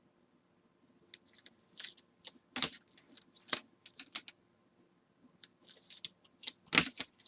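Small handling sounds on a desk: irregular clicks and taps with a few short rustles, the sharpest clicks about two and a half seconds in and near the end.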